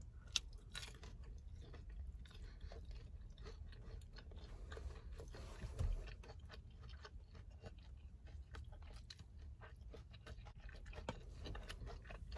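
A person chewing a mouthful of sauced fried honey chicken: faint, quick, irregular mouth clicks.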